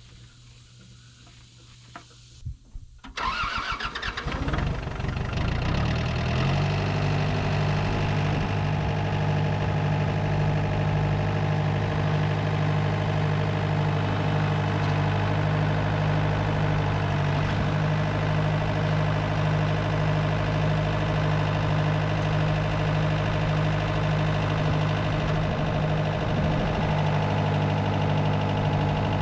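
A couple of clicks, then a tractor engine cranks and starts about three seconds in, settling within a few seconds into a steady idle.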